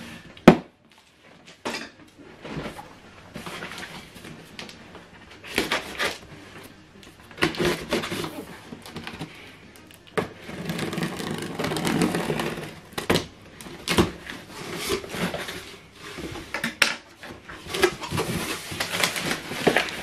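A cardboard box being opened by hand: packing tape cut with a blade, then flaps and packaging handled and pulled open, with scattered knocks, scrapes and rustling and a longer stretch of scraping partway through.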